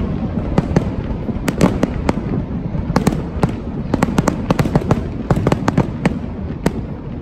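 Fireworks bursting in quick succession: many sharp bangs and crackles over a steady rumble, thinning out near the end.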